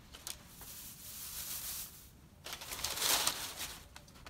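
Rustling and crackling of shredded raffia-type craft stuffing being pulled from a pile and pushed into a brown paper bag, in uneven rustles that are loudest about two and a half to three and a half seconds in.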